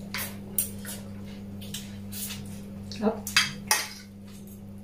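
Plates and cutlery clinking and clattering in short, separate strokes as people eat at a table, several coming close together about three seconds in, over a steady low hum.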